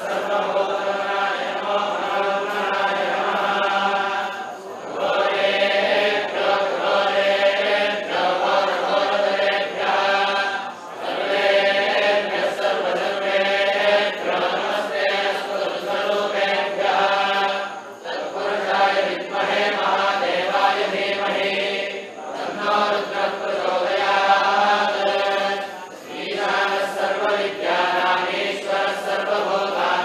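Devotional chanting by a group of voices in long, steady phrases, broken by brief pauses every four to seven seconds.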